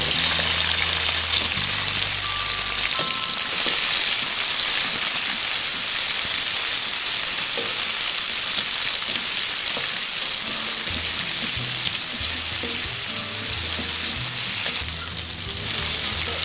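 Cut tomatoes and chillies frying in hot oil in a wok with sliced shallots and garlic: a loud, steady sizzle that eases briefly near the end.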